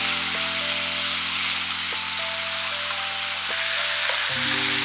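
Meat juice and fat sizzling in a frying pan around a seared roast beef as the juice reduces, a steady hiss over background music.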